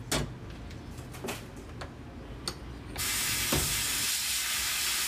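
A few light clicks and knocks, then about three seconds in a sandblaster cuts in with a steady hiss of compressed air and abrasive, blasting rust off steel brackets.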